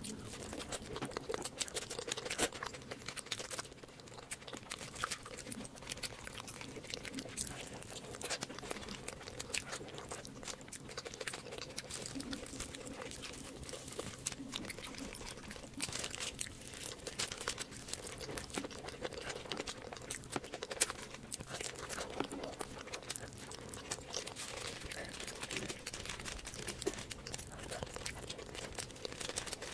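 Close-miked eating sounds: wet chewing and mouth clicks as chole bhature is eaten by hand, with the soft fried bhatura bread torn apart and foil-lined plates crinkling now and then. The sounds are irregular, short and fairly constant throughout.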